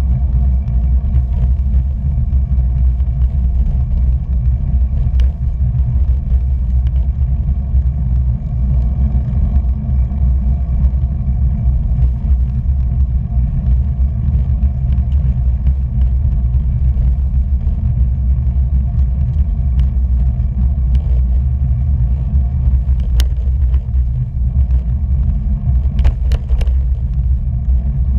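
Steady low rumble of wind and road noise on a camera travelling low over an asphalt road, with a few sharp clicks near the end.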